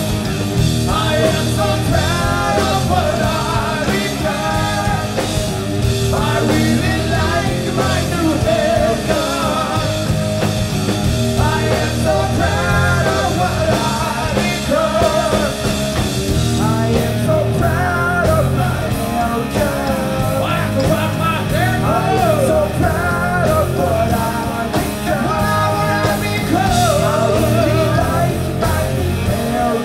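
Live rock band playing loud through the venue's PA: a male voice singing over guitar, bass guitar and drums.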